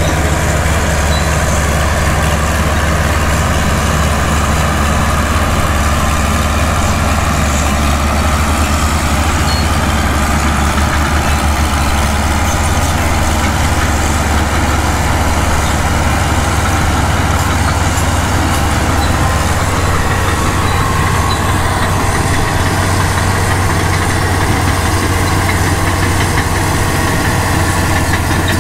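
Diesel engines of crawler dozers running steadily while they push and level loose dirt, a constant low hum with a clattering edge.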